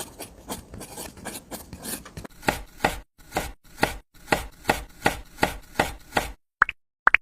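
A steady series of short, sharp chopping knocks, about two to three a second, soft at first and louder from about two seconds in. Near the end they give way to short pitched plops.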